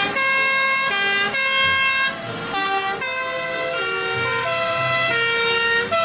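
Sirens of several fire engines in a convoy sounding together. Their held notes switch pitch about every half second and overlap one another.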